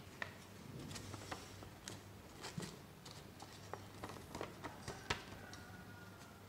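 Sheet of paper being handled and creased by hand while folding origami: scattered small crackles and sharp taps over a faint steady hum.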